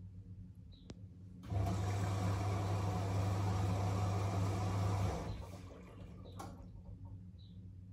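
Front-loading washing machine taking in water: the inlet valve opens about a second and a half in, and water rushes in with a low hum for about three and a half seconds before the valve shuts off suddenly. A light click comes shortly before.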